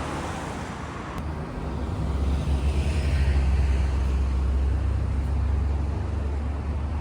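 Low rumble of a passing road vehicle, swelling about two seconds in and easing off near the end.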